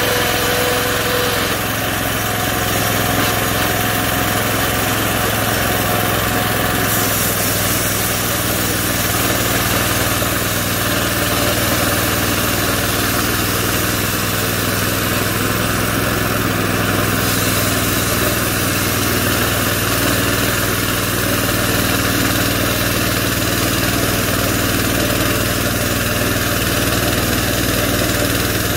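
Homemade bandsaw mill running steadily: its small gas engine drives the band blade while the saw head travels along the log, sawing a board.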